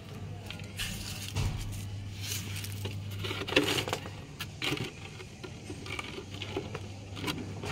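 Hands scraping up dry soil and small stones and dropping them into a cut-open plastic can, with irregular pattering and scraping strokes.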